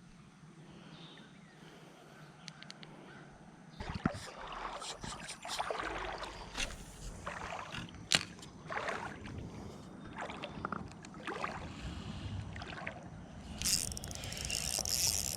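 Shallow creek water sloshing and splashing in irregular bursts, starting about four seconds in, with a few sharp clicks among them and a brighter hiss near the end.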